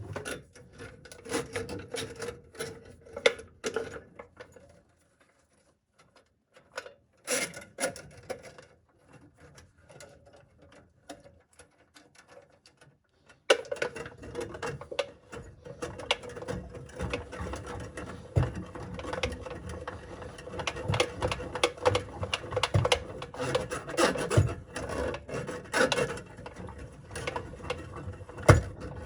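Steel cable of a drain snake rasping and scraping as it is worked through a clogged drain pipe, with many small clicks. It comes in short bouts with pauses in the first half, then runs on without a break from about halfway through.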